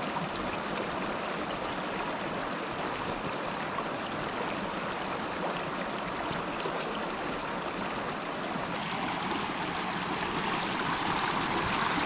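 Steady rushing of a stream's running water, growing slightly louder near the end.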